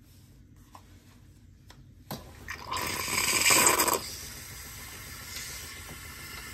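Cecotec bean-to-cup coffee machine starting a drink: about two seconds in it begins to gurgle and hiss, loudly for about a second, then settles into a steady hiss of steam and water.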